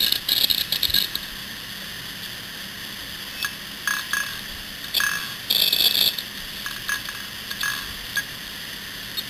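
Opened 7200 RPM hard disk drive running: a steady whir from the spinning platter, with chattering clicks and pings from the read-write head arm. The chatter comes in a dense burst in the first second and again about six seconds in, with single clicks between. A repeated ping or knock like this is the drive struggling to access, a warning to back it up at once.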